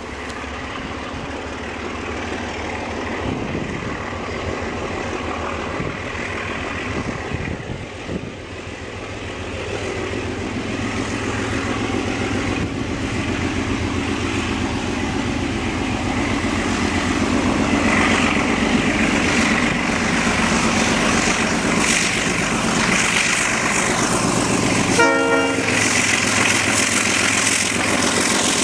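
ALCO RS-11 diesel locomotive drawing nearer, its engine rumble and rail noise growing steadily louder, with one short horn blast near the end.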